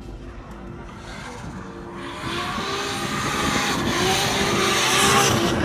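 A car running hard, its noise building and growing louder from about two seconds in, with a wavering pitch.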